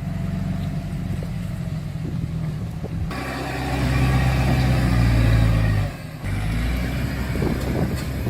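Truck engine running under load with a steady low drone. It grows louder about three seconds in, drops off sharply around six seconds, then carries on steadily.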